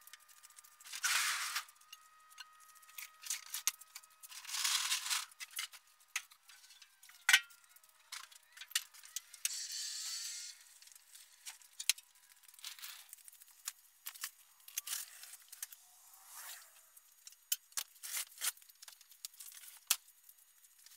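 Sped-up time-lapse sound of work in a garage: rapid, high-pitched clatter of clicks and knocks with several short bursts of hiss, the pitch raised so that nothing low is heard.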